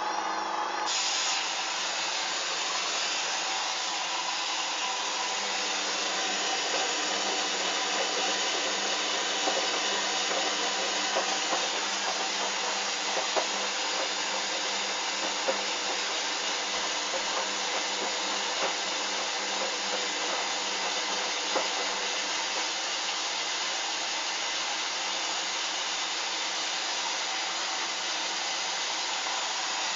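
A Hoover Dynamic washing machine filling with water for a rinse: a steady rush of water starts about a second in, with a few faint ticks over it.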